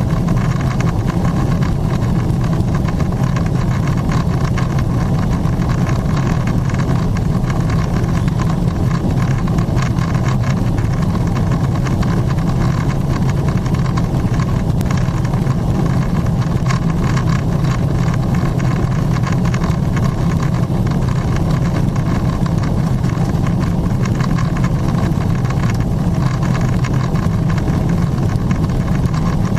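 Steady cabin noise inside a Boeing 777-300ER in its climb: the low drone of the GE90 turbofans at climb thrust under the rush of air along the fuselage, heard at a window seat near the wing.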